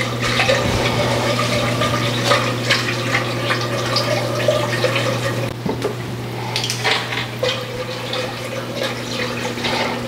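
Wire whisk beating milk into a butter-and-flour roux in a saucepan: sloshing liquid with irregular light clicks of the whisk's wires against the pan, over a steady low hum. This is the milk-and-roux base of a cheese sauce being whisked smooth.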